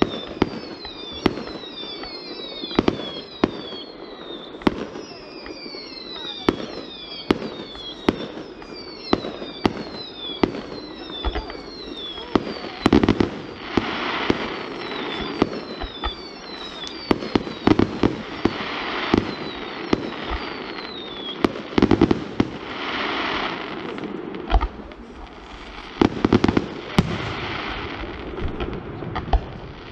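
Fireworks display: a rapid series of sharp bangs throughout, with many short whistles falling in pitch over the first half and bursts of crackling hiss in the second half.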